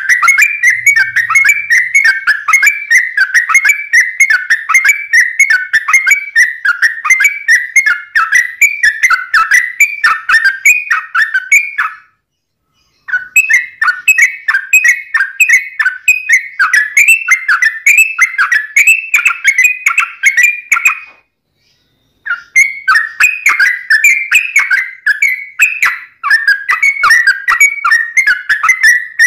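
Yellow-vented bulbul (trucuk) singing a long, fast, unbroken run of repeated whistled notes. It stops completely twice for about a second.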